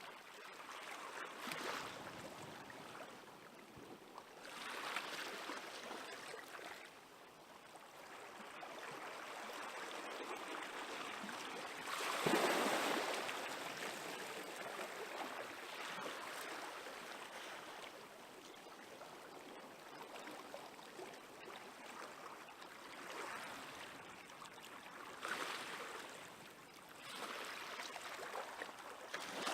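Small waves on a calm sea washing onto the shore, in soft swells every few seconds, the biggest breaking about twelve seconds in.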